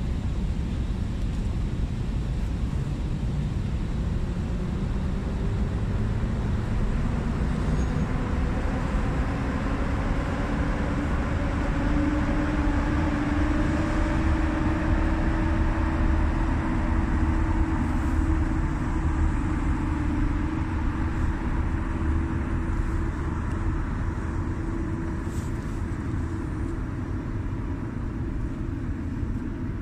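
PKP Intercity EP07 electric locomotive hauling its passenger carriages past at low speed, motors humming with a tone that rises as it gathers speed, over a steady rumble of wheels on rail.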